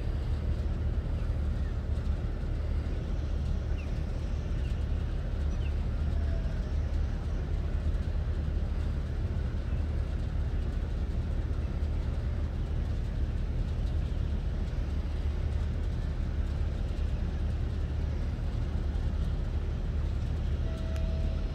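Steady low rumble of the cruise ship Serenade of the Seas' engines as it sails past, with a few faint chirps over it.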